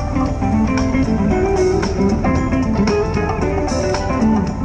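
Background music led by guitar, with plucked and strummed notes over a steady beat.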